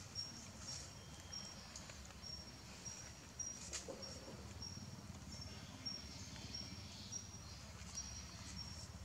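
Forest ambience: a faint, high-pitched short note repeating about twice a second over a low rumble, with a single sharp click a little under four seconds in.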